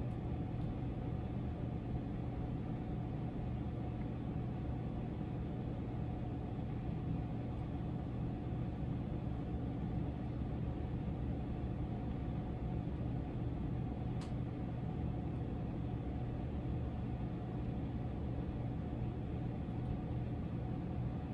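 Steady low hum with a faint background rumble, unchanging throughout, with one faint tick past the middle.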